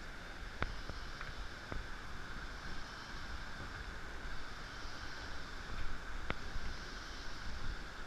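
A steady rainforest background hiss with a low rumble of wind and handling on the microphone, broken by a few sharp knocks of footsteps on wooden boardwalk planks.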